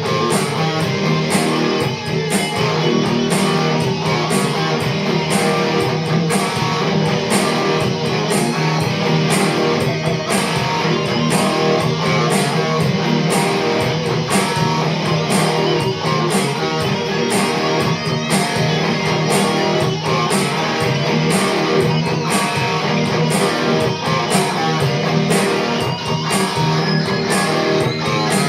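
Guitar music with a steady beat, strummed and plucked, played without a break.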